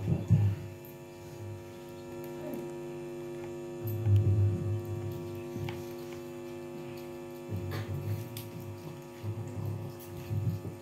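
Steady electrical mains hum from the microphone's sound system, a buzz of several even tones, with a few low rumbles about four and eight seconds in.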